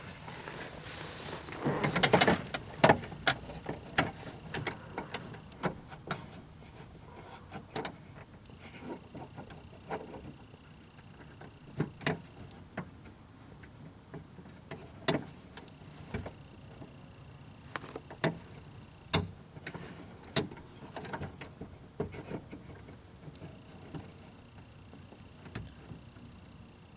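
Irregular sharp metallic clicks and knocks from a 1/4-inch drive socket wrench working on the door handle's fastener inside the car door. A brief scraping rustle comes about two seconds in.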